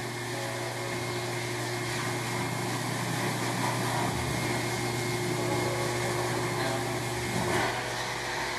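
Dog-wash station's hose blow dryer running steadily, blowing water out of a wet dog's coat, a constant hum under a rush of air.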